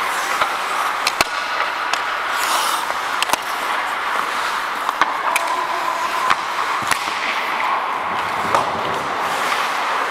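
Ice hockey play heard from on the ice: skate blades scraping and carving, with sharp clacks of sticks and puck at irregular moments.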